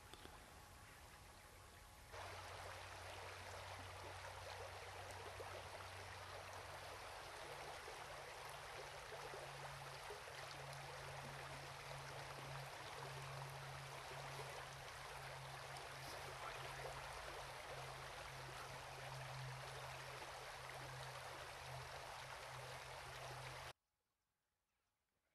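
Steady rush of flowing river water with a low hum underneath, starting abruptly about two seconds in and cutting off abruptly near the end.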